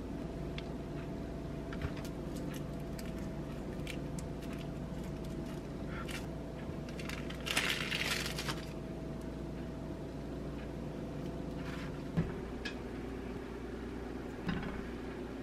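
Quiet food preparation over a steady background hum: light ticks and taps of bread and utensils on a wooden cutting board, with a brief plastic crinkle about eight seconds in as a cheese slice is taken from its wrapper. A couple of sharper clicks near the end come from a knife pushing shrimp onto the bread.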